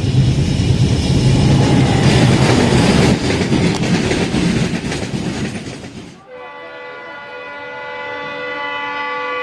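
A train running close by makes a loud rumbling noise that cuts off about six seconds in. Then a WDP4D diesel locomotive's horn sounds one long, steady chord, growing louder as the locomotive approaches at speed.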